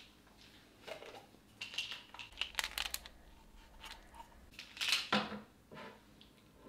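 Plastic prescription pill bottle being handled as pills are shaken out into a hand: a quick run of small clicks and rattles two to three seconds in, and another brief clatter about five seconds in.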